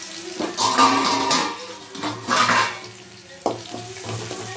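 Garlic sizzling in hot oil with cumin and dried chillies in a metal kadai, while a metal ladle scrapes and stirs around the pan in two loud swells. A sharp clink of the ladle against the pan comes about three and a half seconds in.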